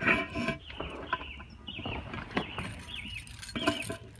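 A small bird chirping, short high chirps repeated in quick runs, with a few soft knocks underneath.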